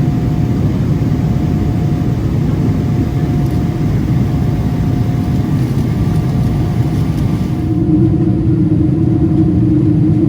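Steady low vehicle rumble with a faint steady hum. About eight seconds in the sound changes: the hiss drops away and a stronger low drone takes over.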